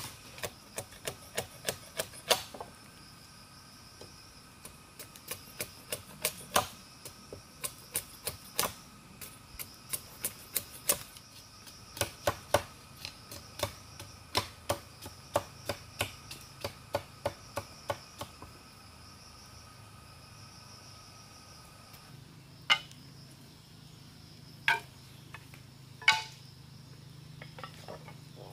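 Sharp knocks in quick succession, about two to three a second, stopping about two-thirds of the way through, then a few single knocks several seconds apart. Steady insect buzzing runs underneath.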